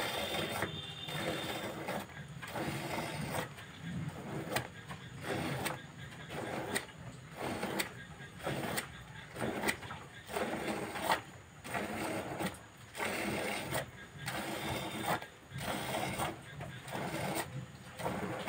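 Milk squirting from a cow's teats into a bucket of frothy milk during hand milking: an even rhythm of hissing squirts, a little more than one a second, with short gaps between strokes.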